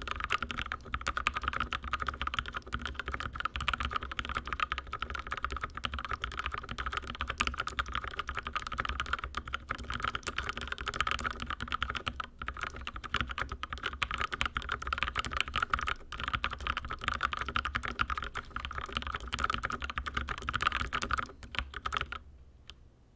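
Continuous fast typing on a YMDK 84 mechanical keyboard in an acrylic case. Its linear switches use Gateron Milky Yellow housings with UHMWPE stems lubed in Krytox 205g0, giving a dense stream of key strikes that stops about a second before the end.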